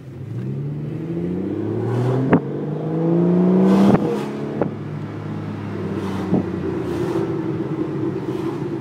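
Aston Martin DB9's V12 engine heard from inside the cabin, accelerating hard: the note climbs, breaks at a gear change about two and a half seconds in, climbs again and drops at a second change about four seconds in. It then settles into a steady cruise with a few short knocks.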